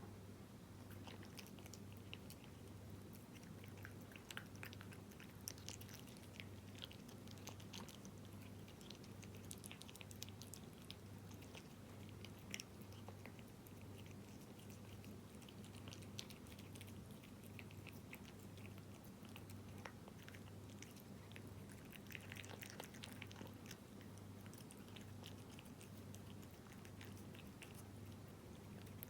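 A cat chewing wet cat food (tuna in jelly), with soft, irregular clicks and smacks of its mouth throughout, over a faint steady hum.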